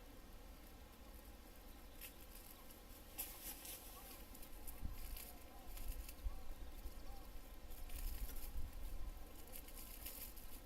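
Faint, irregular rustling and crackling, growing busier a few seconds in, over a low rumble.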